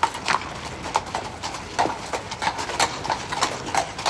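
A horse's hooves clip-clopping at a walk on hard ground, a quick uneven run of sharp strikes at about four a second.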